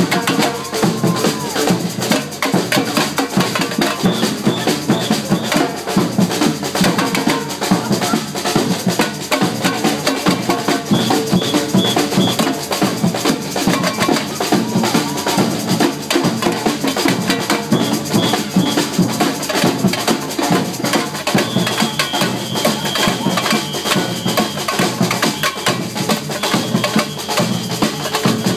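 Live street percussion band of drums playing a fast, dense samba-style rhythm without a break.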